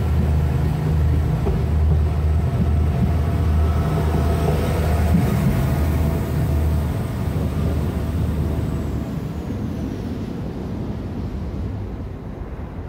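Pesa Atribo SA136 diesel multiple unit pulling out of the station: a steady low rumble from its diesel engines and wheels as the last car passes, easing after about seven seconds and fading as the train moves away.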